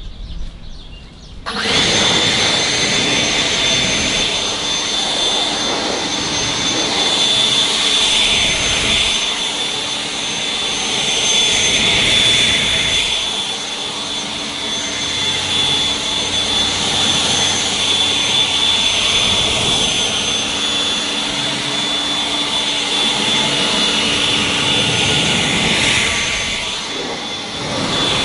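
A leaf blower starts about a second and a half in and runs steadily with a high whine, blowing rinse water off a car's wet hood. It dips briefly near the end, then picks up again.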